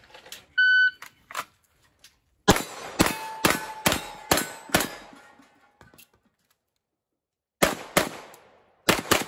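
A shot timer beeps once, briefly. About two seconds later a pistol fires six shots about half a second apart, each hit ringing off a steel knock-down target. After a pause of about three seconds come four more shots in two quick pairs.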